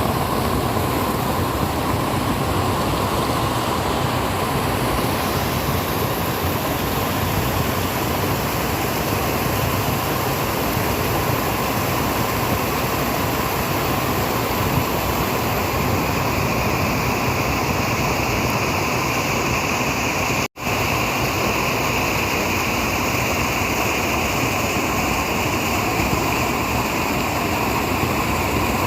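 Steady rushing of flowing water, like a stream or small waterfall, with no pauses apart from a split-second dropout about two-thirds of the way through.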